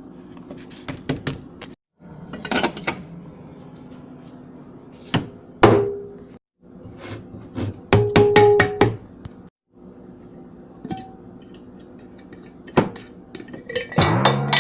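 A rapid string of added sound effects: sharp knocks, clicks and clinks, with a couple of short held tones, over a steady low hum. The sound cuts to dead silence three times, about two, six and a half and ten seconds in.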